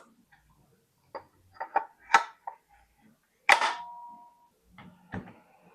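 Parts of a monitor mount knocking and clicking together as it is assembled: several sharp clicks, then one louder clank about three and a half seconds in that rings briefly.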